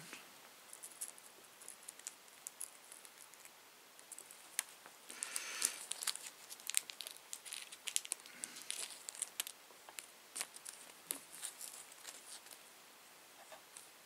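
Faint scattered clicks and crinkly crackles of small plastic and metal parts being handled as an IDE-to-mSATA adapter board is fitted together, busiest around the middle.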